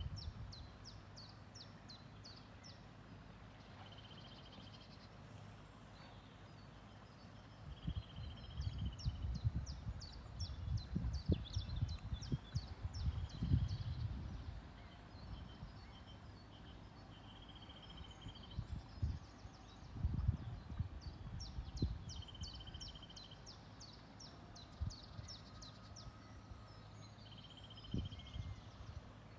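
A small songbird singing the same phrase again and again every few seconds: a quick run of high, short notes and a short buzzy note. Irregular low rumbles and bumps come and go under it.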